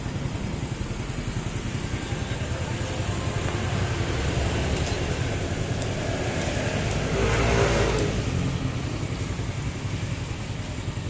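Honda Astrea Supra X's small single-cylinder four-stroke engine idling steadily after an engine rebuild (oversize piston, new cam chain, gaskets and oil pump), running very smoothly, with a brief rev about seven seconds in.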